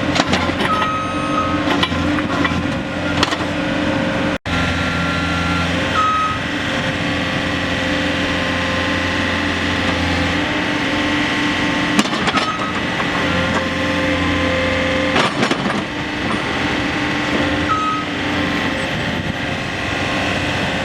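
A 2015 Mustang 1350R skid steer's diesel engine running steadily as the machine is operated. There are occasional clanks and a few short high-pitched tones.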